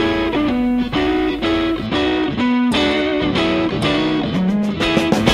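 Background music: an electric guitar playing a riff of chords over bass notes, with no singing.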